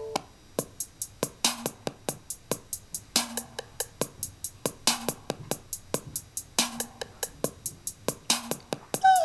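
Electronic music with a sparse drum-machine beat, playing from an iPod through a small portable speaker. The beat is quick, crisp clicks with a low thump about every second and a half. It starts about half a second in, just after the previous tune cuts off, and a held synth chord comes in near the end.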